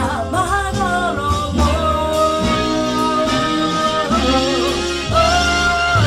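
A song with a woman singing long held notes with vibrato over a steady bass line and band backing.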